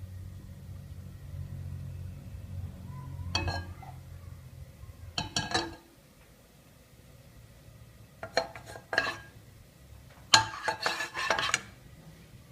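Kitchen utensils clinking and scraping against dishes in four short bursts of rapid clicks, the last and loudest near the end. A low hum fades out in the first few seconds.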